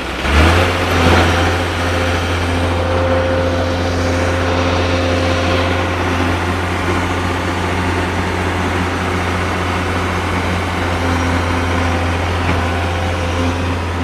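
Excavator's diesel engine running under load, picking up sharply about half a second in and then holding a steady low drone.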